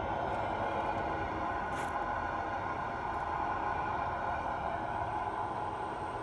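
5-inch gauge miniature railway locomotive, a model of D832 Onslaught, running along the track hauling its cars: a steady rumble and scrape of wheels on rail with a hum.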